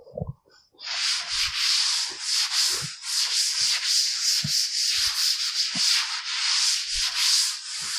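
A board duster rubbing chalk off a chalkboard in quick back-and-forth strokes: a continuous scratchy hiss that starts about a second in.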